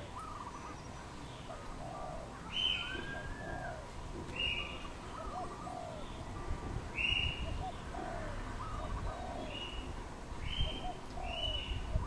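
Doves cooing, soft low phrases repeating and overlapping throughout. Another bird gives about six short, higher calls, the loudest sounds.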